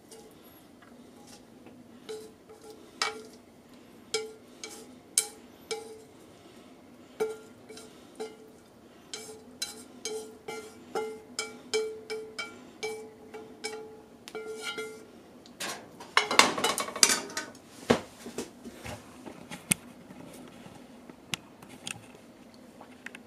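A cooking utensil tapping and scraping against a frying pan while stir-fried food is scraped out into a ceramic bowl. There is a long run of quick taps, each leaving the pan ringing briefly. A louder flurry of scraping and clattering comes about two-thirds of the way in, followed by only a few light clicks.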